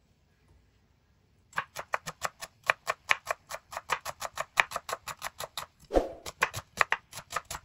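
Knife slicing a red onion on a bamboo cutting board: quick, even taps of the blade on the wood, about five or six a second, starting about a second and a half in.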